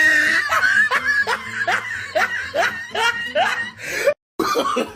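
Evil-laugh sound effect: a cackling run of "ha" syllables, each sliding up in pitch, about two and a half a second. It breaks off with a short dead gap a little after four seconds in.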